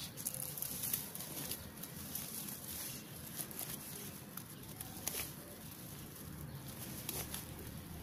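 Tortoises mating in dry grass: scattered light clicks and knocks over a rustle of dry stems, with a couple of faint, brief squeaks.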